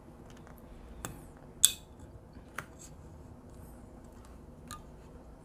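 A few small metallic clicks and clinks of hand tools being handled and set down on a workbench, the loudest about a second and a half in with a brief ring.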